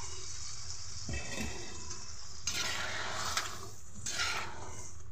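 Boiled black chickpeas and their cooking water sizzling and bubbling in a pan of fried masala while a spatula stirs them. There are a couple of soft knocks about a second in, and the hiss swells twice later on.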